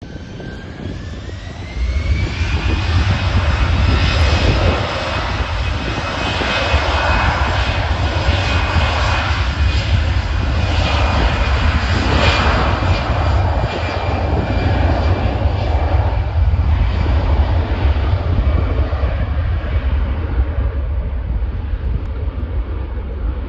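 Airbus A320-family jet airliner taking off. Its engines spool up with a rising whine over the first two seconds or so, then run loud and steady at takeoff thrust with a deep rumble and a high held tone, fading slowly near the end as the jet climbs away.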